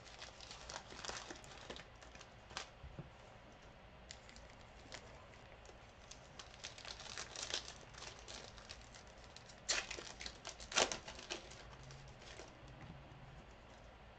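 Trading-card pack wrappers crinkling and tearing as football card packs are ripped open and handled, in scattered crackles with two louder rips about two-thirds of the way through.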